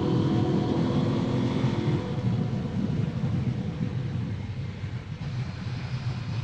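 Husqvarna Norden 901's parallel-twin engine running steadily as the motorcycle rides along a paved road, under a low rumble of wind and road noise.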